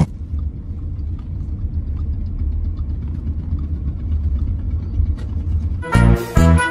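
Low, steady rumble of a car heard from inside the cabin, with faint small clicks over it. About six seconds in, it gives way to music with a heavy beat.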